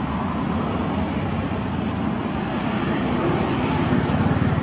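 A steady low rumble of background engine-like noise, growing a little louder near the end.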